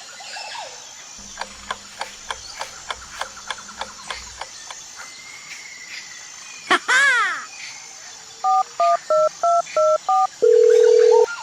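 Edited sound effects: a run of quick falling chirps, a sharp hit with a falling whistle-like glide, then telephone keypad tones and a steady ringing tone as a call is placed.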